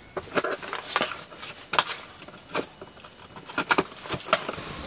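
Irregular clicks and light knocks of objects being handled, as a pair of scissors is picked up.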